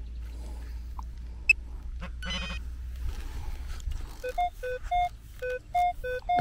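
Minelab Equinox 600 metal detector sounding a target signal as the coil sweeps over it: short beeps alternating between two pitches, starting about four seconds in. Before that there is a low rumble and one sharp click about a second and a half in.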